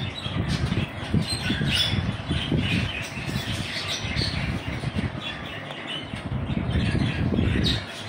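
Caged budgerigars chattering in quick, short chirps and squawks, over a low, uneven rumble.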